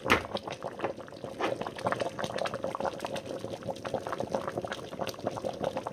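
Thick rice porridge bubbling in a pot, with irregular plops and pops as bubbles burst through it. A sharp knock comes right at the start.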